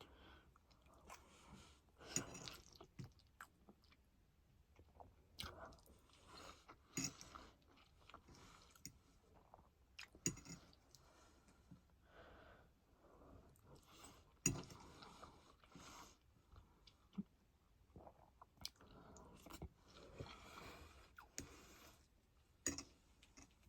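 A person chewing food with the mouth close to the microphone: faint, irregular wet chewing and biting sounds broken by scattered sharp clicks.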